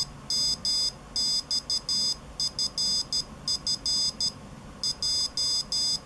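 Buzzer on a homemade Arduino Morse code keyer beeping out Morse characters in high-pitched dots and dashes, one letter after another with short gaps between them, in its code-learning mode.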